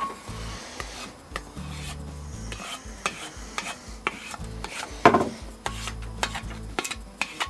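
Hand work on a part: rubbing and scraping with scattered sharp clicks, and one louder knock about five seconds in.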